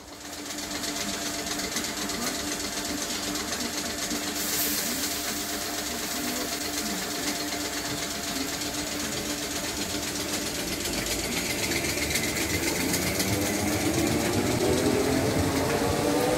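Merseyrail electric train at the platform, humming steadily, then starting to pull away: from about two thirds of the way in its traction motors whine, rising in pitch and growing louder.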